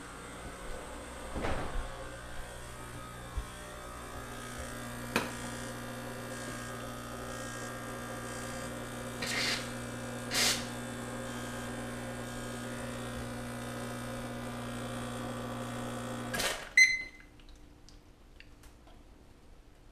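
An electric appliance humming steadily, then cutting off suddenly about sixteen seconds in, followed at once by a sharp click with a short ring.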